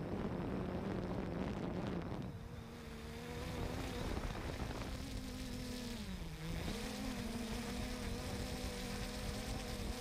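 Quadcopter drone's motors and propellers buzzing with a steady hum. The pitch dips briefly about six seconds in and then comes back up. A broad rushing noise covers the first two seconds.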